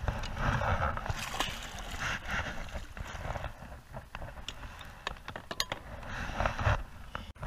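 Water splashing at a kayak's side as a large fish is lowered into the water on a line, in several short bursts. Scattered clicks and knocks from handling the line and gear on the kayak.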